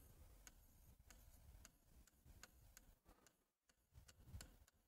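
Near silence with faint clicks, about three a second, from a stylus tapping and drawing on the glass of a touch-screen board as handwriting is written.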